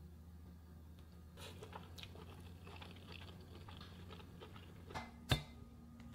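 Someone biting into and chewing a rice-paper spring roll filled with shredded zucchini and carrot: a run of small crunching clicks lasting a few seconds. Near the end there are two sharp clicks, the second the loudest sound.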